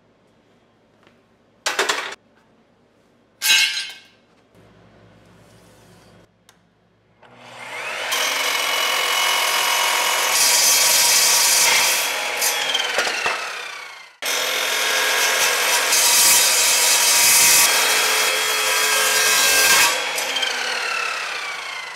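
Evolution sliding miter saw with a metal-cutting blade cutting through steel black pipe. Two sharp knocks come first, then the saw runs up and cuts for several seconds, winds down, and starts again for a second cut of about seven seconds, its pitch falling away at the end.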